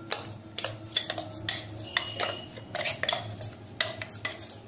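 A metal spoon scraping and knocking against the inside of a stainless steel mixer-grinder jar as ground coconut chutney is emptied out. The knocks come as sharp metallic clinks, about two a second.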